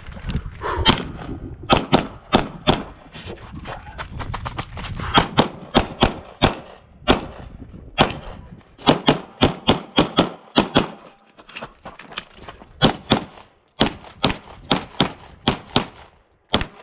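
Handgun fired close to the microphone in rapid strings, mostly quick pairs of shots. There are brief pauses between bursts, the longest about eleven seconds in.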